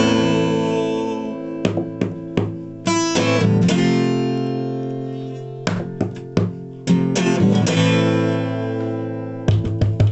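Acoustic guitar chords ringing out, each strummed and left to decay, with a run of quick, rhythmic strums near the end.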